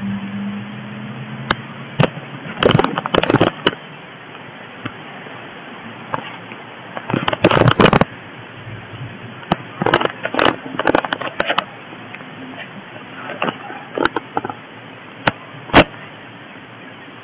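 Handling noise on a handheld camera's microphone: bursts of crackling clicks every few seconds over a steady hiss, with a low hum that fades out about two seconds in.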